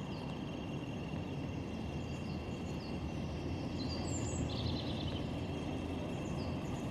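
Canal narrowboat's engine running low and steady as the boat pulls away from its mooring, with small birds chirping now and then.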